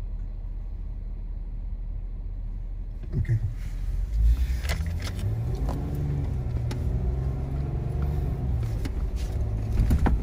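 Jeep Wrangler engine, heard from inside the cab, idling low and steady, then revving up about four seconds in and pulling hard under load as it climbs a steep sand hill. A few sharp knocks come from the bouncing vehicle.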